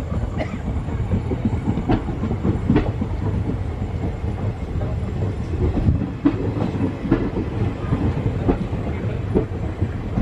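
Passenger train moving on the rails during shunting: a steady low rumble with wheels clicking and knocking irregularly over rail joints.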